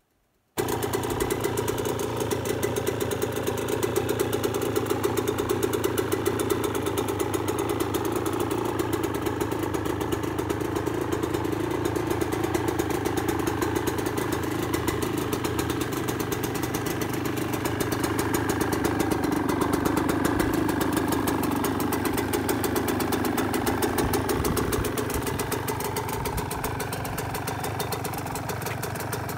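The 125 cc single-cylinder two-stroke engine of a 1998 Yamaha YZ125 dirt bike running steadily at idle on its new piston and rings. It cuts in suddenly about half a second in and grows a little quieter near the end.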